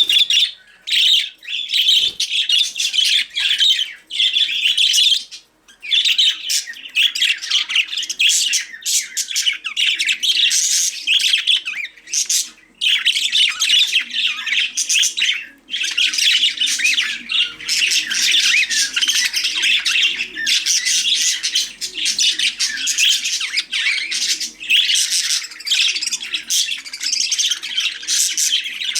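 Budgerigars chattering and warbling continuously, with squawks, several birds at once; the chatter breaks off briefly a few times.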